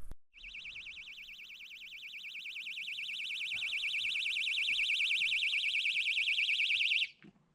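Electronic fishing bite alarm sounding a rapid warbling beep, signalling a fish taking the bait. It grows steadily louder, then cuts off suddenly about seven seconds in.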